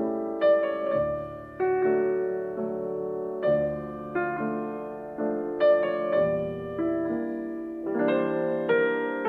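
Background piano music: gentle notes and chords struck about once or twice a second, each fading away before the next.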